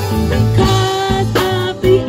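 Live blues band playing: electric guitar, bass guitar and drum kit, with a steady beat.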